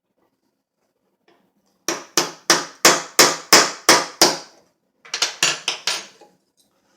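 A hammer taps a pin punch to drive a small tapered roll pin into an AR-15 charging handle latch, metal striking metal. A run of about eight sharp taps at roughly three a second is followed, after a short pause, by about six quicker, lighter taps.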